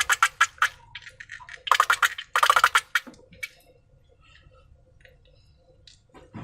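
Slime being squeezed and worked by hand, giving rapid crackling clicks in two short bursts in the first three seconds, then only faint scattered ticks.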